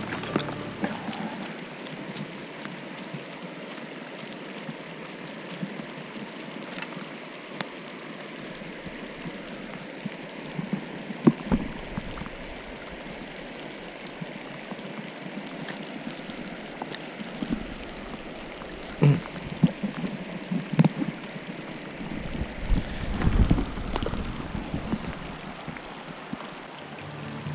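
Steady rush of flowing stream water, with a few short sharp noises about eleven seconds in and again in the last third.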